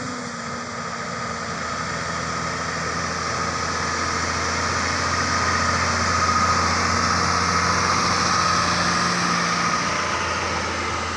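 Heavy diesel engine running steadily, growing gradually louder to a peak around the middle and then easing off again.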